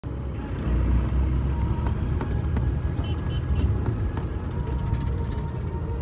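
A vehicle driving along, heard from inside: a steady low rumble of engine and tyres on the road, with light rattles. Three short high chirps come about halfway through.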